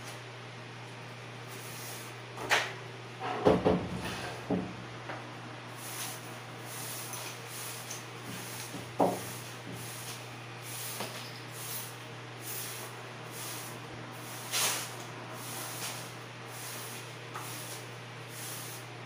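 A broom sweeping a bare, untiled floor gritty with sand: short swishing strokes about two a second through the second half. Several loud knocks come about three to four and a half seconds in, with another single knock about nine seconds in.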